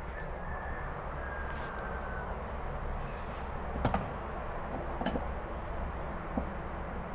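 Washing machine being reassembled, its bolts being put back in: a few light knocks and clicks, the clearest about four and five seconds in, over a steady low hum.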